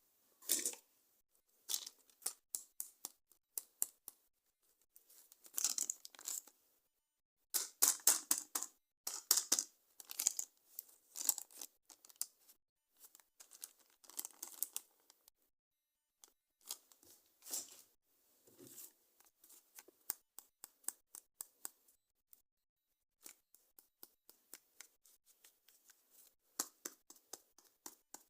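Toy packaging being opened by hand: repeated bouts of tearing and crinkling with many quick sharp clicks, broken by short pauses.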